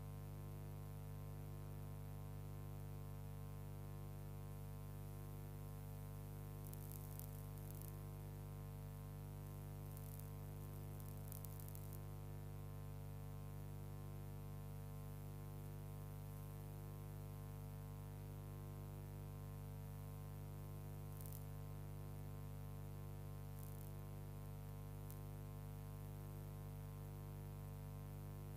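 Steady electrical hum, rich in overtones and unchanging throughout, with a few faint clicks scattered through it, typical of an old cine film soundtrack. No locomotive sound stands out.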